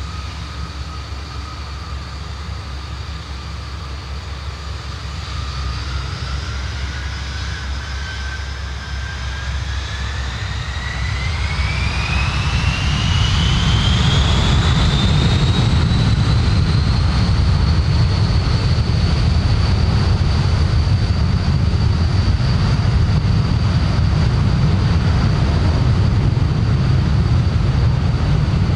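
Four Lycoming ALF 502 turbofans of a BAe 146-200 spooling up to take-off power. A few seconds in, a whine starts climbing steeply in pitch and levels off about halfway through, then holds steady over a deep rumble that grows louder and stays loud.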